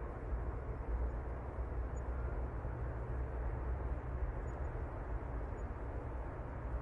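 Steady city street ambience: a low, even rumble of traffic with no single vehicle or event standing out.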